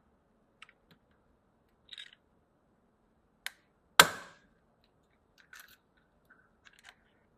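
Rear camera lens protector ring of an iPhone 12 back panel popping out under a hand-turned press tool: a single sharp crack about four seconds in, with faint clicks of the tool before and after it.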